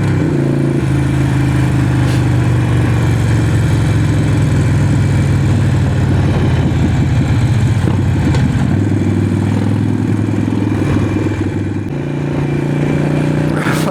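Harley-Davidson Forty-Eight's air-cooled V-twin engine with a loud exhaust running under way, heard through a mic inside the rider's helmet. The engine note rises just after the start, drops lower about nine seconds in, and picks up again near the end.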